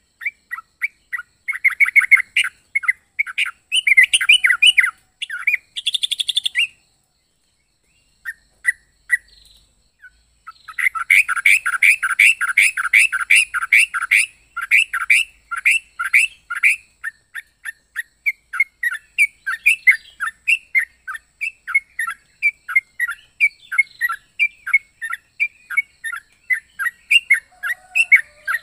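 Yellow-vented bulbul (trucukan) calling in rapid series of short, sharp chirps. The chirps stop for about three seconds a little after six seconds in, then resume in a dense burst and continue as evenly spaced notes.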